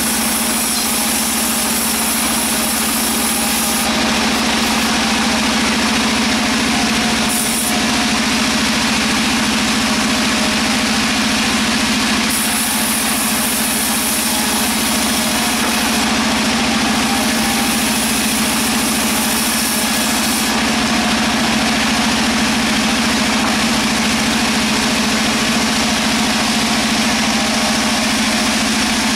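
Sawmill machinery running steadily, a loud continuous machine noise with a steady low hum.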